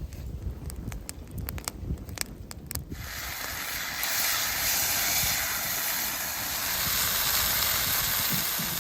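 Tri-tip searing over a campfire: a loud, steady sizzle starts suddenly about three seconds in, after a few sharp crackles.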